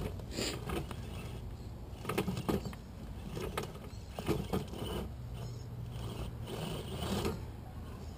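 Axial SCX10 rock crawler's Holmes Hobbies Torquemaster 27T brushed motor and gearbox whirring in short bursts as it crawls over rocks, with several clicks and knocks along the way.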